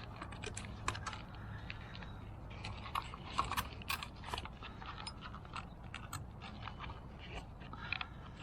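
Irregular small clicks, taps and light scrapes of parts being handled and pried apart by hand as a car's fuel pump assembly is taken apart.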